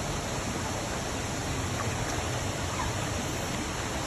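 Rainforest creek water rushing over rocks: a steady, even rush.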